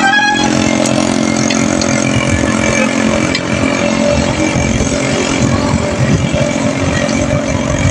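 A small motorcycle-type engine runs steadily, with traffic noise.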